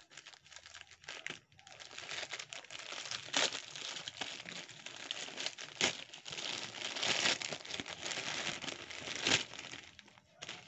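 Plastic parcel packaging, a courier mailer and a plastic bag, crinkling and rustling as it is handled, with a few sharp crackles now and then.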